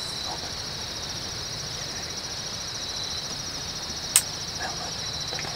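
Steady evening insect chorus, a high pulsing trill. About four seconds in there is one sharp click.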